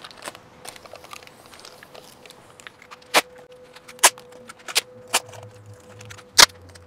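Clear plastic tape crinkling as it is stretched across a drilling jig and pressed down, with five sharp crackles in the second half, the last the loudest.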